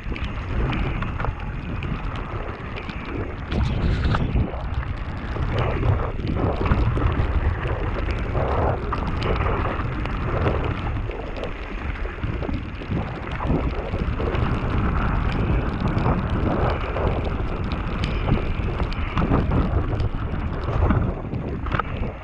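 Mountain bike descending a wet, muddy gravel trail: wind buffeting the action-camera microphone, tyres rolling through wet dirt, and the bike knocking and rattling over bumps.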